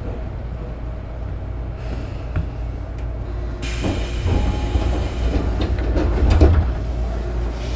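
Running sound inside a Tobu 9000 series electric train car (MoHa 9804, a chopper-controlled car), a steady low rumble of wheels on rails. Partway through, a loud hiss comes in along with clattering over the track, then eases off near the end.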